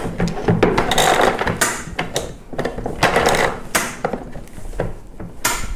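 Plastic strap-retractor knob on the underside of a Cosco Smart portable booster seat, turned to let out its nylon webbing strap. A run of irregular plastic clicks and scrapes, with several louder rasps as the strap slides out.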